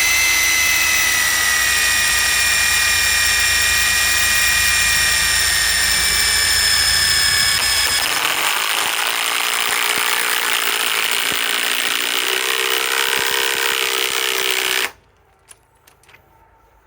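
Ryobi PSBIW25 compact impact wrench running continuously under heavy load, its high whine slowly dropping in pitch. About eight seconds in the sound changes to a rapid rattle, and the tool stops about fifteen seconds in. It is running on an 8 Ah 21700 battery drained to its last bar.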